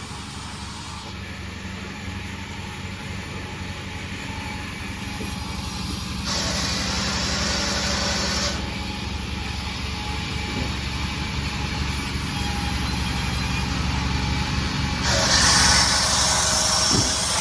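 Sawmill engine running steadily, with two louder stretches of hissing noise, about six seconds in and again near the end.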